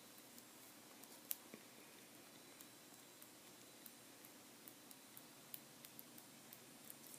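Faint, irregular clicks of typing on an iPad mini's on-screen keyboard, over near-silent room tone, with one slightly louder click about a second in.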